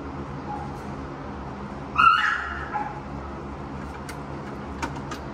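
A puppy gives one sharp, high-pitched yelp about two seconds in, with softer short cries before and after it.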